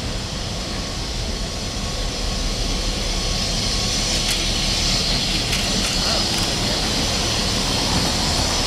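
EMD GP9RM diesel-electric locomotive's engine running as it leads a slow freight train toward the crossing, a steady low rumble growing louder as it nears. A hiss builds over it from about three seconds in.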